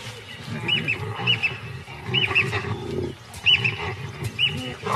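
Baboons growling and grunting in a squabble, with short high chirping calls repeating every half second or so above the low growls.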